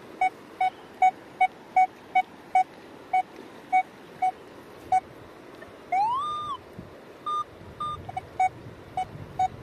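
Metal detector's electronic beeps: a short mid-pitched beep repeating about two and a half times a second. About six seconds in, a tone rises, holds and falls, then come two higher beeps before the regular beeping resumes.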